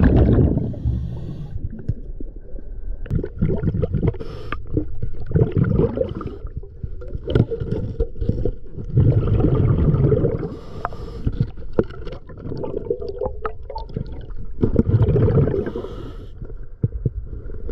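Scuba diver breathing through a regulator underwater: a low gurgling rush of exhaled bubbles every few seconds, with occasional sharp clicks, heard through an underwater camera.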